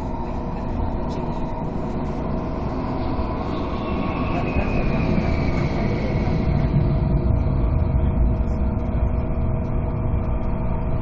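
Hong Kong Airport Express train running, heard from inside the carriage: a steady low rumble with a steady whine. A higher whine falls in pitch about four to six seconds in.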